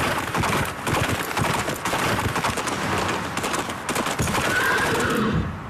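Loud, dense commercial soundtrack of rapid clattering impacts over a wash of noise, with a short high-pitched call near the end.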